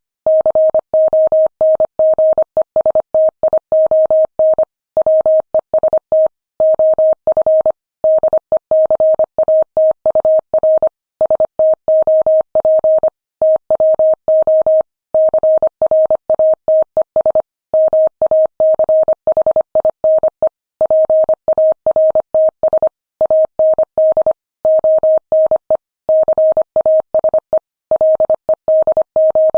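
Morse code sent at 25 words per minute: a single tone of about 600 Hz keyed on and off in quick dots and dashes, with short pauses between words.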